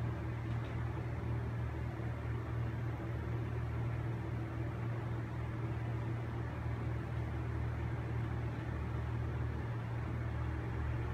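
Steady low electric hum with a soft even hiss, unchanging throughout.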